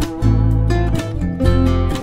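Background instrumental music led by a plucked acoustic guitar over a strong bass line, its notes changing in a regular rhythm.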